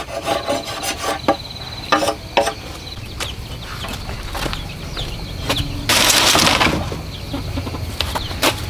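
Machete blade scraping the skin off a green bamboo pole in quick rasping strokes for the first couple of seconds, followed by scattered clicks and knocks and a loud, brief rushing noise about six seconds in.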